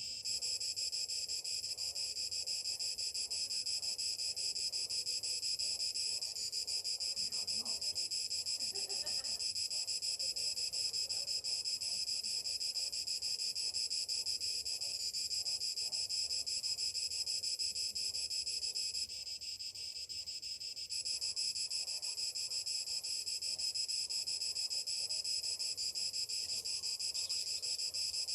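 Cicadas singing in a dense chorus, a continuous high buzz that dips briefly about two-thirds of the way through.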